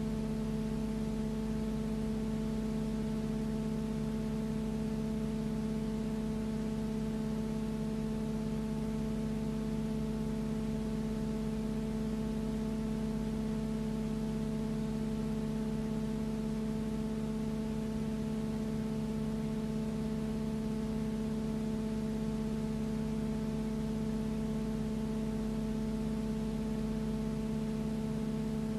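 Steady hum made of a few fixed tones over even hiss, unchanging in pitch and level throughout.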